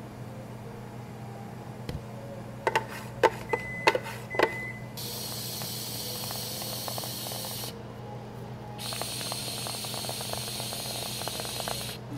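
Whipped cream dispenser hissing as it sprays cream onto two shakes, in two long squirts of about three seconds each with a short break between. Before that come a few sharp knocks and clinks.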